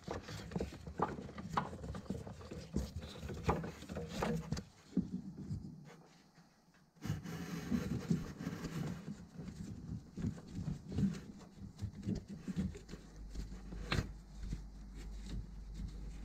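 Gloved hands and a new ribbed auxiliary belt rubbing and knocking against the engine's pulleys and brackets as the belt is worked into place, with scattered short clicks. The handling stops briefly about six seconds in, then resumes, and a low steady hum comes in near the end.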